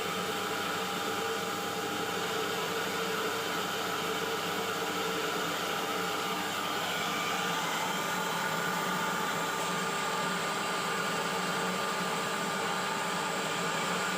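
Electric rice huller, driven by a 4 HP electric motor, running steadily with a continuous even whirring hum.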